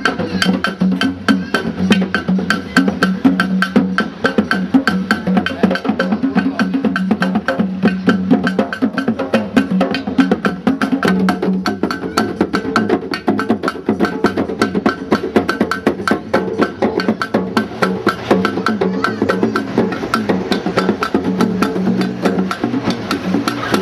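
Percussion music: fast, even strikes on wood-block-like percussion and drums, several a second, over steady pitched tones.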